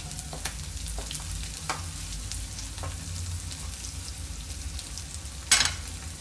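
Chopped onions frying in oil in a kadai: a steady sizzle with a few faint crackles, and one sharp click about five and a half seconds in.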